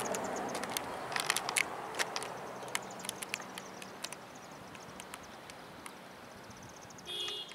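Distant Airbus H145 helicopter, a steady rumble with a faint hum that fades away as it leaves. Scattered sharp clicks and a run of quick high ticks sound over it, and a brief tone sounds near the end.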